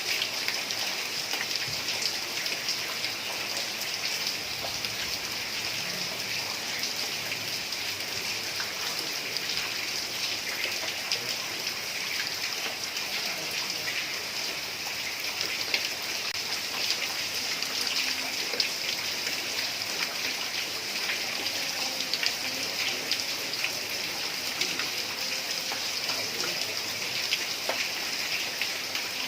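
Heavy rain falling steadily on a tiled roof, with many sharp individual drop hits.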